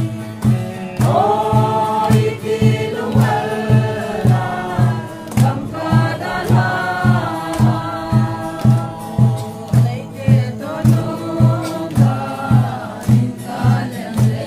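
A mixed group of men and women singing a mourning song together, accompanied by an acoustic guitar and a drum beating steadily, about two beats a second.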